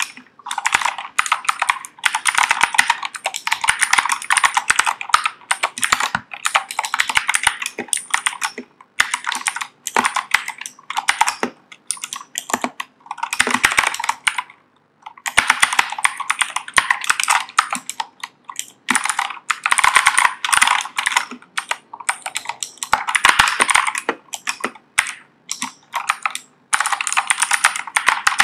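Fast typing on a Keychron K2 V2 mechanical keyboard with clicky Gateron Blue switches: dense runs of crisp key clicks, broken by a few short pauses.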